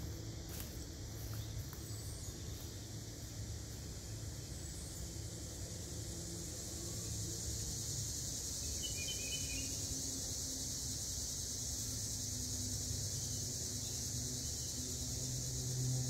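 Outdoor garden ambience: a steady low hum under a high, even hiss that grows louder past the middle, with one short bird chirp about nine seconds in.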